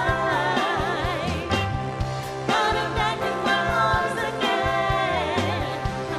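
Motown-style soul song: a lead singer with wavering vibrato over a band with bass and a steady drum beat.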